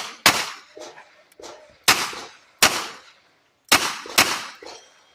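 Gunshots fired one at a time at irregular spacing: about five loud shots, with a couple of fainter ones between them.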